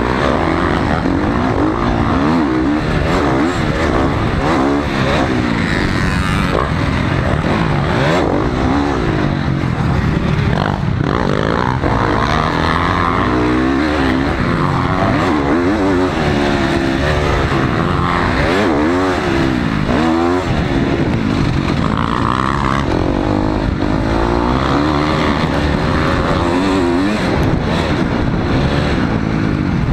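Dirt bike engine heard close up from the bike, its revs rising and falling again and again through throttle changes and shifts, over steady wind noise on the microphone.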